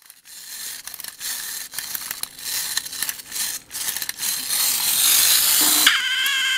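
Clockwork mechanism of a 1955 Köhler No. 47 tin duck toy being wound and worked by hand: irregular rasping clicks that become a steadier, louder rasp after about four seconds. Near the end the duck's squeaker gives one short, reedy quack that rises at its start.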